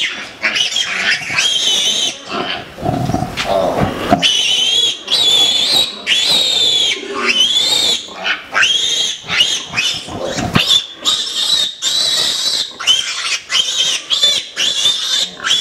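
Pigs squealing over and over, high-pitched and wavering, with a lower, harsh grunt about three seconds in.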